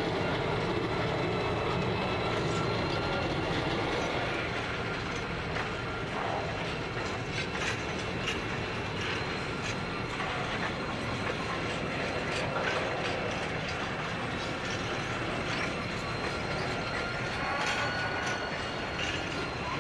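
Empty grain hopper wagons of a freight train rolling past, wheels clicking over the rail joints now and then, with a steady high-pitched squeal from the wheels over the rumble of the train.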